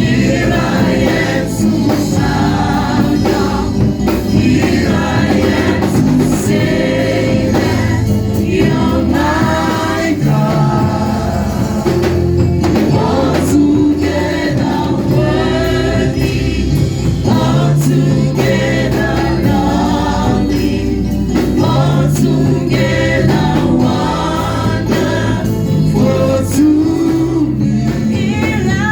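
Gospel choir singing with band accompaniment: sung voices over bass and percussion.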